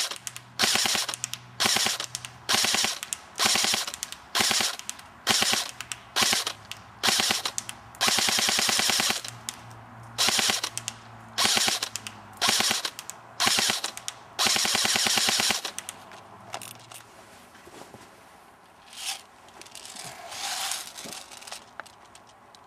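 Airsoft electric gun (AEG) firing short three-shot bursts under a Burst Wizard King Kong MOSFET, the motor and gearbox cycling quickly with each trigger pull. Twice the trigger is held and it rolls over into a longer full-auto string. The firing stops about two thirds of the way in, and only a few faint sounds follow.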